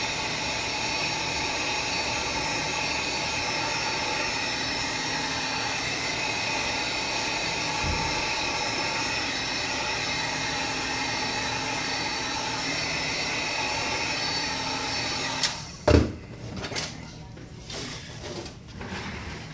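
A 500-watt heat gun running with a steady whine as it blows hot air on the iPad's edges to soften the glass adhesive; it switches off about fifteen seconds in. A thump and a few light clicks and knocks follow.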